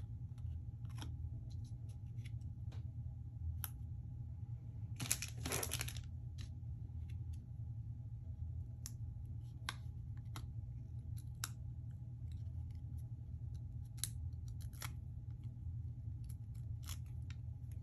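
Light ticks and crinkles of paper and plastic backing as adhesive foam squares are peeled off their sheet and pressed onto a die-cut paper embellishment, with a brief louder rustle about five seconds in, over a steady low hum.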